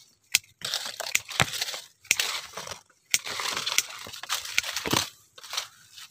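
Hand pruning shears snipping small durian twigs: about five sharp, irregularly spaced snips, with leaves and twigs rustling between the cuts.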